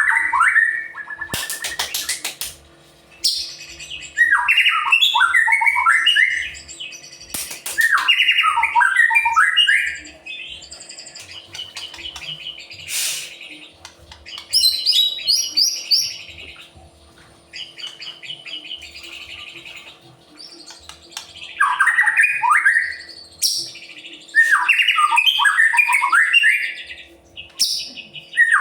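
White-rumped shama (murai batu) in full, loud 'gacor' song. Bursts of about two seconds of rapid falling whistled notes alternate with softer, higher rattling trills, and a few sharp clicks cut in.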